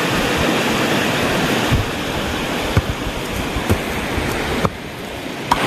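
Steady rushing of flowing river water, with a few light knocks. The rushing drops off sharply near the end.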